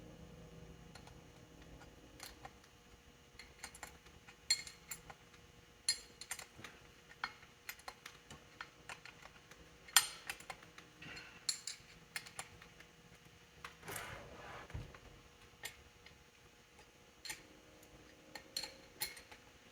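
Scattered light metallic clicks and clinks of small hand tools and steel parts being handled and set down, with a sharper knock about ten seconds in.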